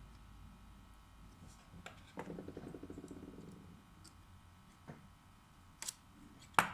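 Small handling noises of hands-on phone repair work: a brief rapid, rattly rasp about two seconds in, then a few sharp clicks and taps, the loudest right at the end.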